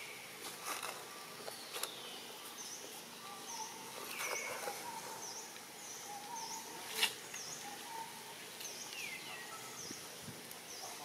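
Outdoor bird ambience: repeated short high chirps and a few falling whistled calls over a steady background hiss, with a sharp click about seven seconds in.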